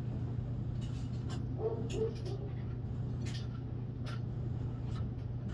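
A plastic gold pan being dipped and worked in a tub of muddy water, with scattered drips, splashes and light knocks of plastic on plastic over a steady low hum. A short two-part sound comes about two seconds in.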